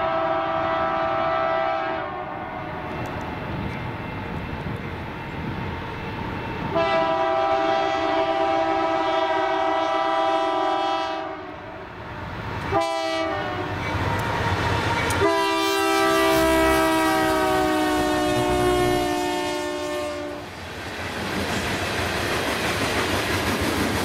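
Freight locomotive's fouled multi-chime air horn, a sour, out-of-tune chord, blowing long, long, short, long, the grade-crossing signal. Its pitch drops as the locomotive passes, and freight cars then roll by with a steady rumble and wheel clatter.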